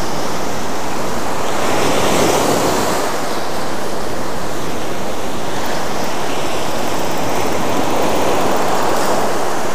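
Ocean surf breaking and washing up the shallow beach, a steady rushing noise.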